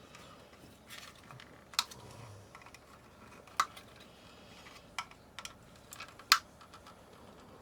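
Scattered sharp plastic clicks and taps, about half a dozen spread unevenly, the loudest one near the end, from the clipped-together plastic casing of an LED camping light being handled and pried at.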